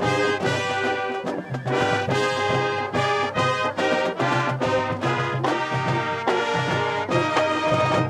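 Marching band's brass section playing a loud, rhythmic passage with a steady low pulse underneath, cutting off together on a final note at the end.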